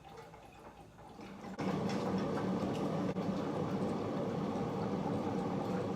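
Milk frother whirring steadily in almond milk, switched on about a second and a half in.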